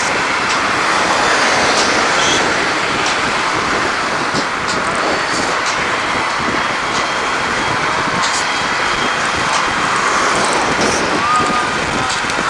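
Steady rush of road traffic and wind noise while cycling along a main road. Faint ticks are scattered through it, and a short high squeal comes near the end.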